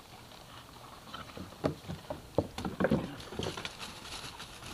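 Two Rottweiler puppies scuffling and wrestling in dry fallen leaves: rustling leaves with a few sharp knocks and scrapes, most of them in the second and third seconds.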